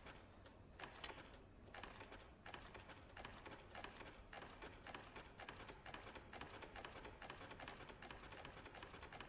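Near silence: faint, irregular light clicks, several a second, over a low steady hum.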